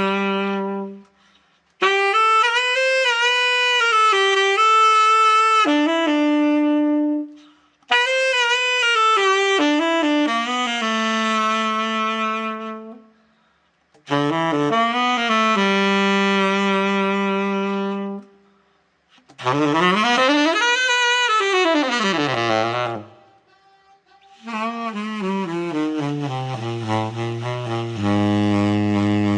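Selmer Reference 54 tenor saxophone played in six short melodic phrases with brief pauses between them, holding long notes. One phrase runs up and back down, and the last settles on a low note near the bottom of the horn. It is being play-tested after a full overhaul.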